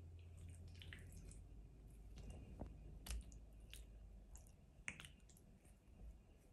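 Faint, short wet squishes of marinated raw chicken thighs being laid and pressed down by hand onto plastic cling film, a handful of separate squelches, the sharpest about three seconds and five seconds in.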